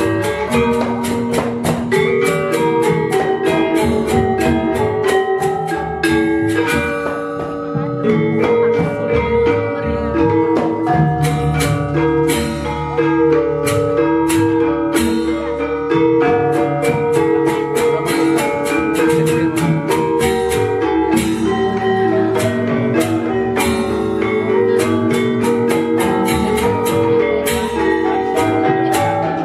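Balinese gamelan selonding ensemble playing: iron-keyed metallophones struck with mallets in quick, dense patterns of ringing tuned notes.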